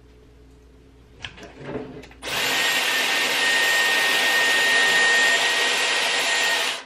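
Dyson Airwrap hair styler blowing air through its curling barrel: a steady rush of air with a high motor whine. It switches on about two seconds in and cuts off abruptly near the end, after a few faint handling sounds.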